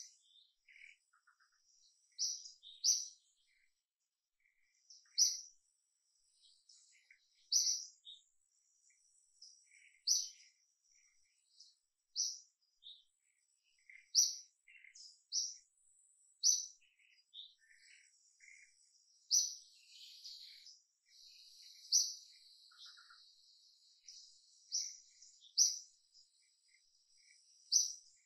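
Birds chirping: short, high, single chirps repeated every one to three seconds, over a faint steady high buzz.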